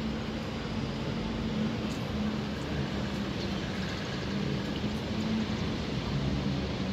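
Steady city traffic noise with a low engine hum running under it.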